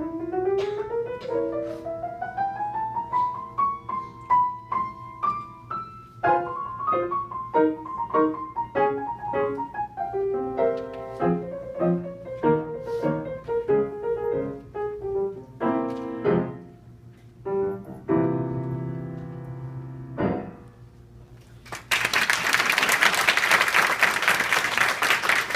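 Piano playing: a rising run, then a busy stretch of notes and chords that ends on a final chord about twenty seconds in. Applause starts a couple of seconds later.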